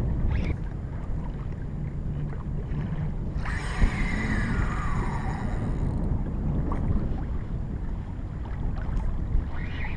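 Wind buffeting the microphone over water lapping at a kayak, with a fishing reel's drag buzzing for about two and a half seconds starting about three and a half seconds in, falling in pitch as a hooked hammerhead shark pulls line off the reel.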